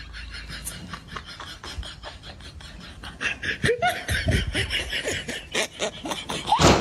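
People laughing in quick repeated bursts, growing louder about three seconds in.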